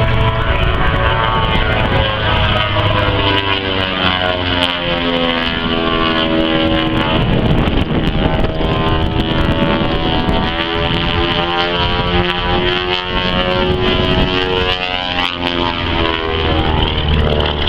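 A Beechcraft Model 18's twin Pratt & Whitney R-985 radial engines in aerobatic flight. The engine note sweeps down and up in pitch as the plane passes.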